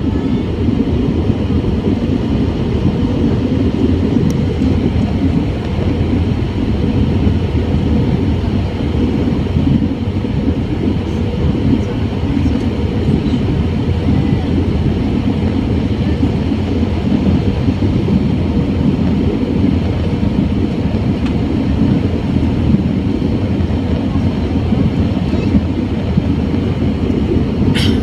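Steady cabin noise of an Airbus A320 in flight, heard from a window seat over the wing: a constant low rumble of engines and airflow with a faint steady hum. A brief click near the end.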